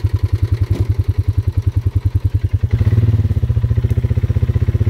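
Engine of a trail vehicle chugging at low revs with a slow, even pulse. About three seconds in the revs pick up a little and it runs smoother and slightly louder.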